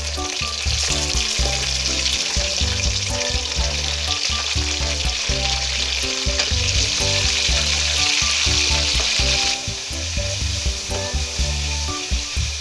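Raw chicken pieces sizzling hard in hot ghee with fried onions in an aluminium karahi, being stirred and turned with a wooden spatula. The sizzle eases somewhat about nine and a half seconds in.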